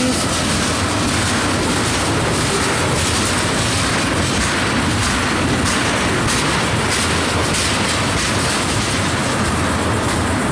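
Freight train tank cars rolling past slowly: a steady rumble of steel wheels on the rails, with a few faint clicks.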